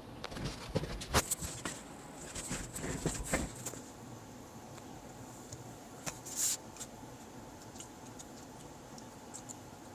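Handling noise: a run of sharp clicks, light knocks and rustling in the first three and a half seconds, a short rustle about six and a half seconds in, then a few faint scattered ticks.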